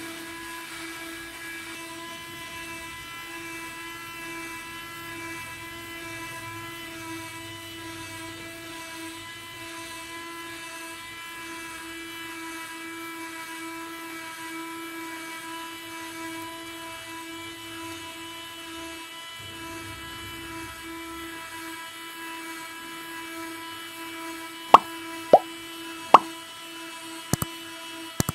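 Small DC gear motor running with a steady whine as it retracts the sliding sections of a cardboard telescopic boom. Near the end, several sharp pops and clicks cut in over the motor.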